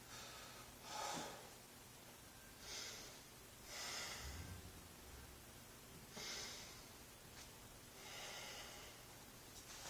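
Faint, slow breathing, about five drawn breaths a second or two apart, with a few faint clicks near the end.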